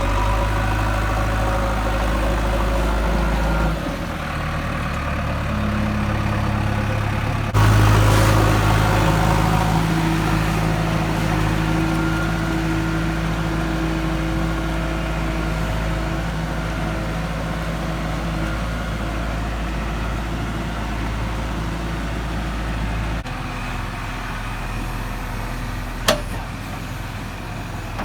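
JCB 3DX backhoe loader's diesel engine running steadily. It gets louder sharply about eight seconds in, eases off gradually and drops back again later on. A single sharp knock comes near the end.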